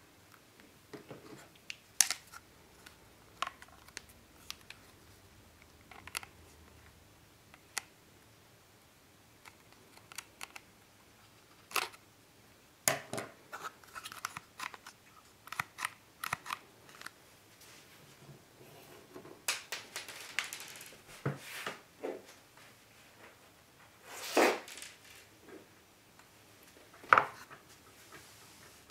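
Hard plastic clicks, taps and short scrapes from a Husqvarna 55 chainsaw's chain brake handle being worked into place on its plastic clutch cover, against its metal spring and parts. The sounds come at uneven intervals, with a few sharper snaps and a longer scrape a little past the middle.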